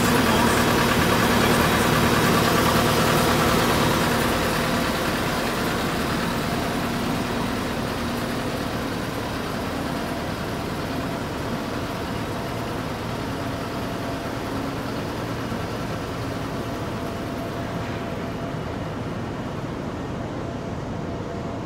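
Diesel engine of a tracked mobile plant running steadily, with a fuel-injector cleaning canister hooked up to it. It is loudest for the first few seconds, then gradually grows a little quieter.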